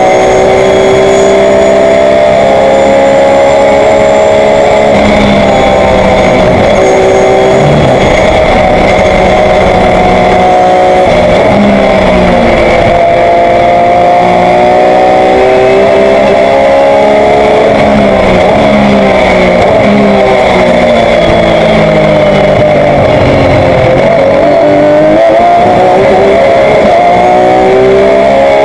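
Race car engine of a 2005 Porsche 997 GT3 Cup, a naturally aspirated flat-six, heard from inside the cockpit at racing speed. Its pitch climbs under acceleration and drops under braking and downshifts, again and again, dipping lowest about three-quarters of the way through before climbing hard again, with a steady high whine underneath.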